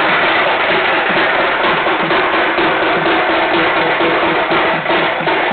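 Loud percussion music: drums beating a fast, even rhythm with a steady tone held underneath.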